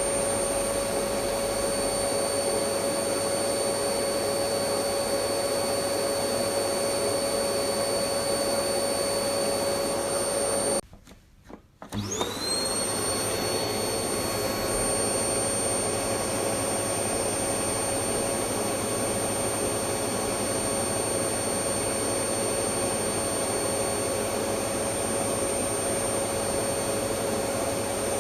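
Electric vacuum cleaner running steadily: an even rushing noise with a motor whine. About eleven seconds in it cuts out for about a second, then comes back, its whine rising back up to pitch.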